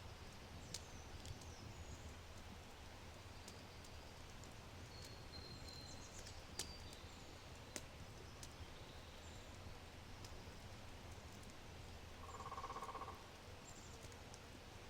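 Low oak fire crackling, with a few sharp pops, while small birds give short high chirps in the trees. About twelve seconds in, a buzzy rattling call lasts about a second.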